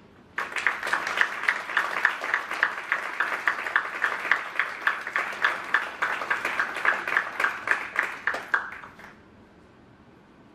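Audience applauding, with an even clap rhythm of about four a second standing out. It starts suddenly and dies away about nine seconds in.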